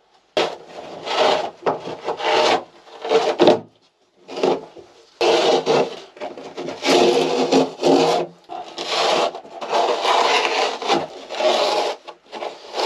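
Old carpet being torn up by hand: a series of irregular ripping pulls, each half a second to a second or so long, with short pauses between.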